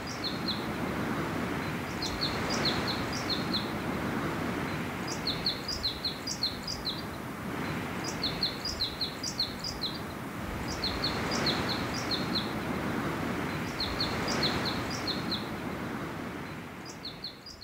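Wind rushing through the tops of ponderosa pines, swelling and easing in slow gusts, while a small bird calls in short quick runs of high chirps every few seconds.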